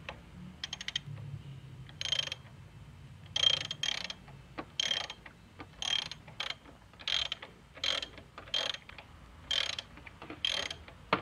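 Ratchet wrench with a 27 mm socket turning a motorcycle front fork's suspension adjuster, the pawl giving a short run of clicks on each swing of the handle, about one swing a second.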